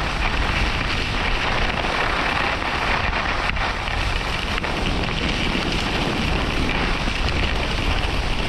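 Skis sliding and scraping steadily over groomed snow on a downhill run, with wind rushing over the microphone.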